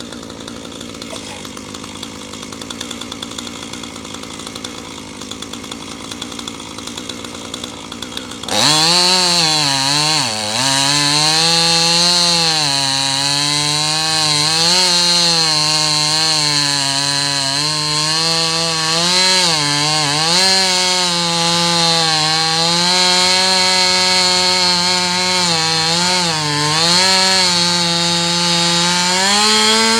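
Chainsaw engine running quietly at first. About a third of the way in it jumps to full throttle, and its pitch dips and recovers again and again as the chain bogs into the wood and frees up.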